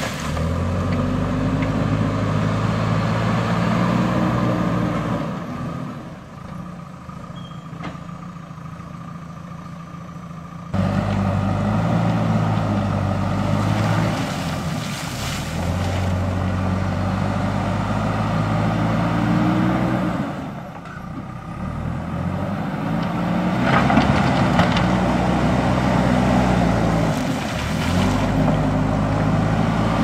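JCB backhoe loader's diesel engine labouring as the front bucket pushes rocks and soil, its note rising and falling and easing off twice, with stones scraping and clattering under the bucket.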